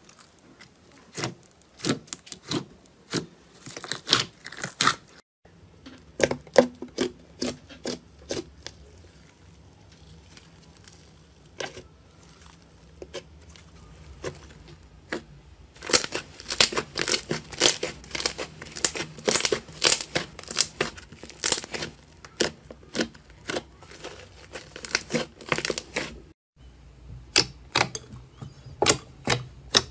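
Slime squeezed, poked and stretched by hand, making sharp clicking pops and crackles several times a second, busiest in the second half.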